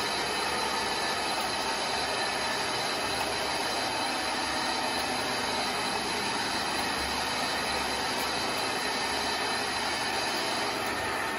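MTH operating car wash model accessory running: a steady, even hiss with a faint hum as it puts out clouds of smoke.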